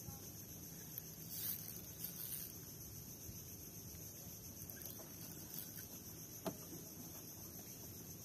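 Quiet open-air ambience with a steady high-pitched insect drone, and a faint click about six and a half seconds in.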